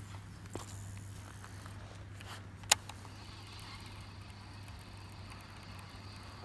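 A fishing rod and reel being cast: one sharp click a little over two and a half seconds in, with two fainter clicks before it, over a steady low hum. A faint, steady high tone comes in about three seconds in.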